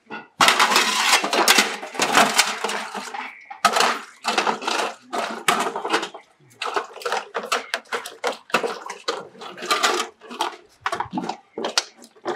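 Dishes being washed by hand in a plastic basin: a metal bowl and plastic cups clattering and scraping in quick, irregular bursts.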